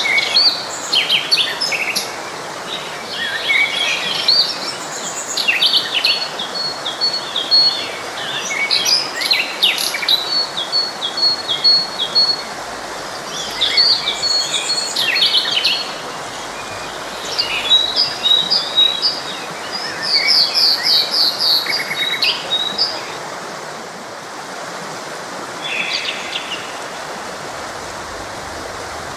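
Several songbirds singing and calling over the steady rush of a forest stream: quick chirps, trills and runs of rapid repeated notes, with fewer calls in the last few seconds.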